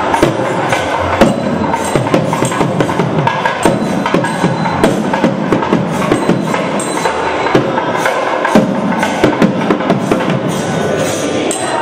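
Tamil Hindu temple festival music led by percussion: fast, dense drumming with many sharp strokes, keeping up steadily throughout.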